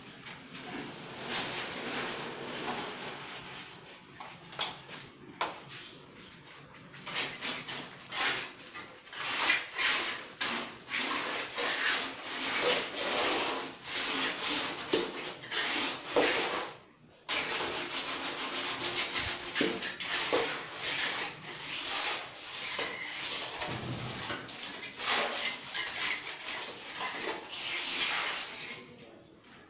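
Mason's trowel scraping and smoothing wet cement mortar on a concrete counter slab, in repeated irregular strokes, with a brief break about halfway through.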